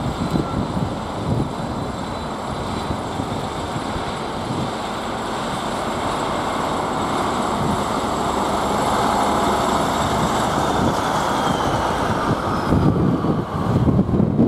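Class 156 Super Sprinter diesel multiple unit passing close by, its underfloor diesel engines running, getting a little louder near the end. A faint falling whine sounds around the middle.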